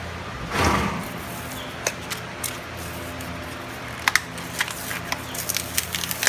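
Handling noise from a hoof pad and a blue sheet being worked by hand: a brief rustle about half a second in, then scattered sharp clicks and crinkles, more of them near the end, over a steady low hum.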